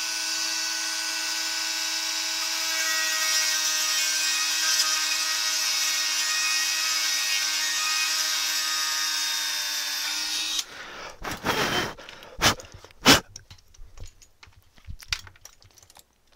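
Dremel rotary tool running at high speed with a steady whine, grinding out screw holes in a quadcopter's camera mount to widen them. It cuts off abruptly about ten and a half seconds in, followed by several sharp clicks and knocks.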